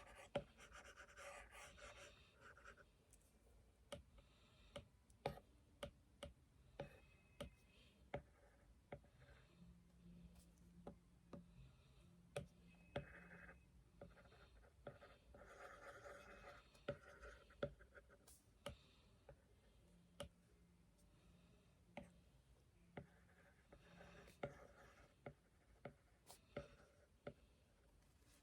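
Faint scratching strokes of drawing, in short patches, with many scattered sharp taps of the drawing tool.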